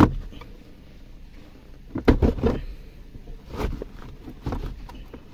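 Plastic centre console trim of a 2019 Toyota Corolla knocking and clicking as it is pried and pulled loose by hand: one sharp knock at the start, then several short bursts of plastic clatter.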